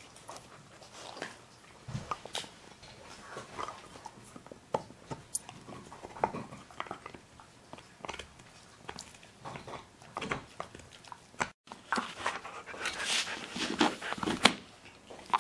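Siberian huskies gnawing hard antler chews: irregular scraping, clicking and crunching of teeth on antler. It becomes denser and louder after a brief break about two-thirds of the way in.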